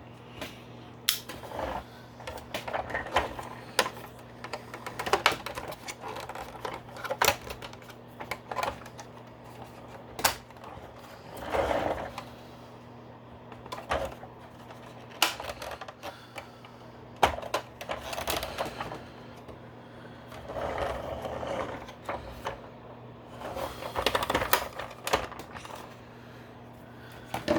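Hard plastic toy-vehicle parts being handled, pressed and pried at, giving scattered sharp clicks and short bursts of clatter as a wrongly fitted tab is worked at.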